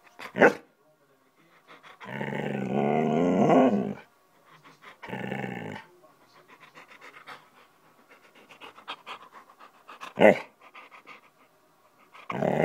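Alaskan Malamute moaning at its owner: a long drawn-out moan about two seconds in, a shorter one around five seconds, and another starting near the end. Softer breathing sounds fall between the moans, with two short sharp sounds, one just after the start and one around ten seconds.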